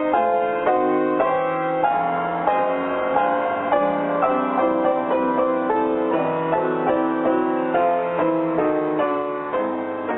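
Piano music: notes and chords struck in a steady pace, changing about every half second.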